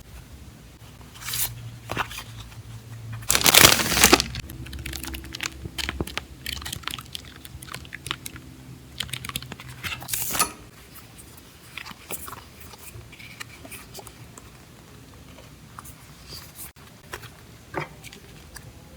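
Journaling supplies and their packaging handled close to the microphone: plastic and paper crinkling and rustling with scattered light taps and clicks. The loudest crinkle comes about three and a half seconds in, and a shorter one about ten seconds in.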